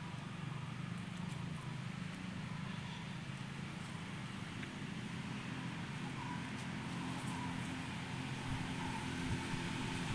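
A motor engine running steadily, a low even hum that barely changes.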